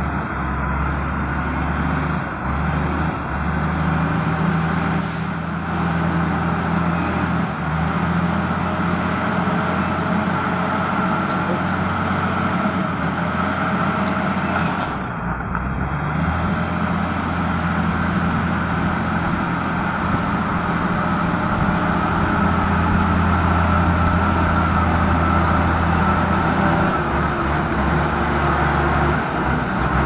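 Wheel loader's diesel engine running steadily as the machine drives through a shallow river, growing somewhat louder in the second half as it comes closer.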